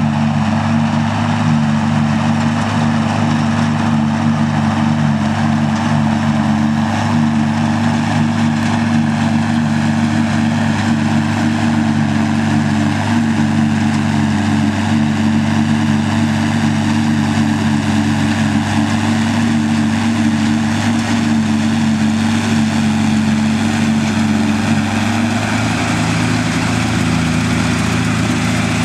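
Farm tractor's diesel engine running steadily, its low note changing slightly near the end.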